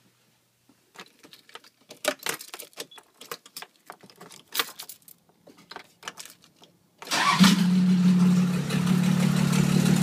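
Clicks and knocks of climbing into the cab and handling the ignition keys. Then, about seven seconds in, a Toyota 1HD-T 4.2-litre straight-six diesel catches suddenly and settles into a loud, steady idle. The engine is running with its turbo and exhaust manifold off, and the owner says it is missing slightly because cylinders 3 and 4 are damaged by turbo compressor debris.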